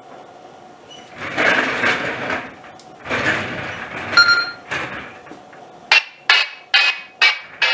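Two bursts of shuffling and handling noise, then five short beeps in quick succession from a Baofeng UV-5R handheld radio as its keypad is pressed to enter a frequency.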